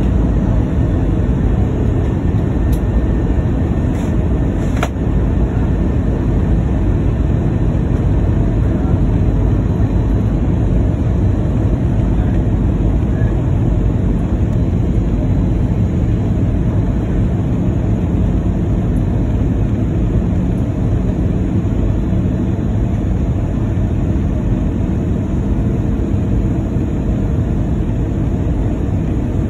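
Steady cabin noise of an Airbus A319 airliner in flight: a low, even rush of engines and airflow, with a few faint clicks about four to five seconds in.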